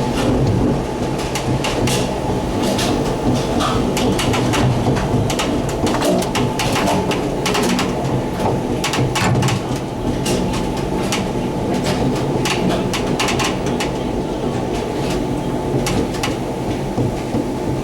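Gateway Arch tram capsule riding along its track inside the arch: a steady low mechanical hum with frequent clicks and rattles.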